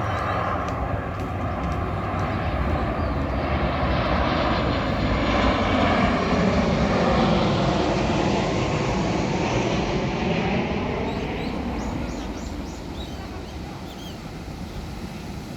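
An aircraft passing overhead: a steady engine rumble that swells to its loudest about halfway through and fades toward the end, with a sweeping, wavering tone as it goes by.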